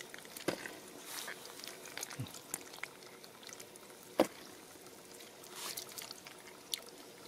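Bare hands squelching and scooping through wet mud and shallow muddy water, with scattered small splashes and one sharper wet slap about four seconds in.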